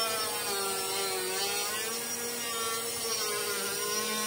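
Cordless mini grinder cutting a thin groove along a crack in an artificial-marble countertop, its motor whining steadily with a pitch that drifts up and down as the bit bites.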